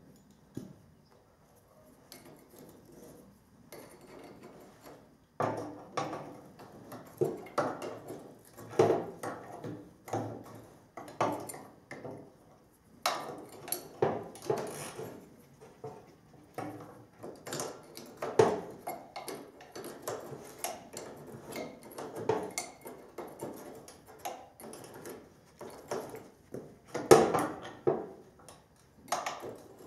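Wrench and other hand tools clinking and knocking against the steel of a combine's header drive as a bolt is worked loose by hand. Irregular metallic clanks, one or two a second, starting about five seconds in, with the loudest knock near the end.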